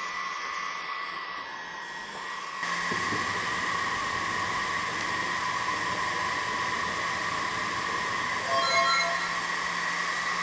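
Enjoywood CEL-E10 diode laser engraver running, its laser-module cooling fan giving a steady whine. From about two and a half seconds in the sound is louder, with a low hum added as the machine works the engraving job, and a few short stepped tones come near the end.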